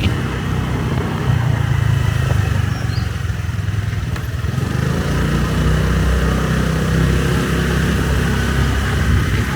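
Motorbike engine running under way, with road and wind noise. The engine note eases off about three seconds in and picks up again about five seconds in.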